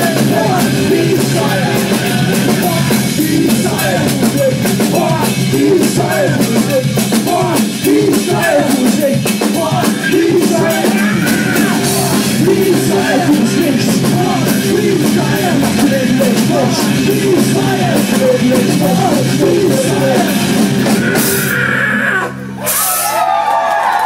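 Live rock band playing loud: electric guitar, bass and drum kit with cymbals under a singer's vocals. The music drops out for a moment about two seconds before the end, then comes back.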